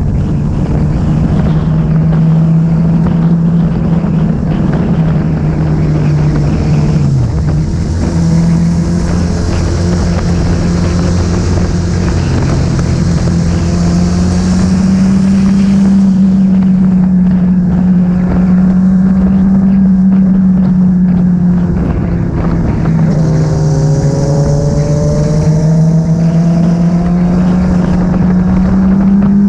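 Motorcycle engine running steadily at road speed, with wind rushing past. The engine note dips and climbs again twice, about seven seconds in and again past twenty seconds. The wind hiss swells twice.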